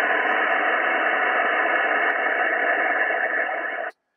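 Yaesu FTDX10 HF transceiver's receiver giving steady single-sideband band noise on 20 meters, an even hiss with no station coming through. It cuts off suddenly near the end as the microphone is keyed to transmit.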